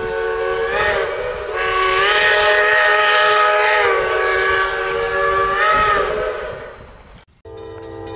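A train's multi-note chime horn sounding several blasts in a row, each with a slight upward bend in pitch at its start and the longest in the middle; it fades out and cuts off about seven seconds in.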